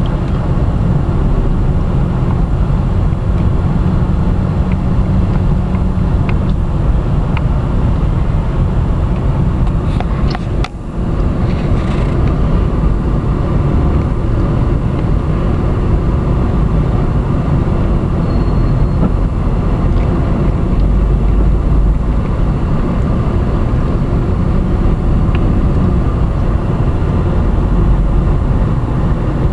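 Car driving slowly in traffic, heard from inside the cabin: a steady low rumble, with a short dip about ten seconds in.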